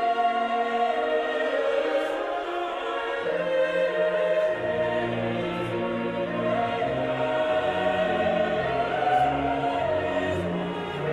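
Choral music with long held notes, lower voices joining in a few seconds in.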